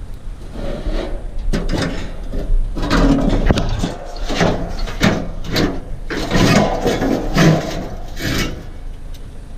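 Scrap metal being shoved and wrestled into a vehicle: irregular scraping, rubbing and clattering of metal against metal, with a string of sharp knocks.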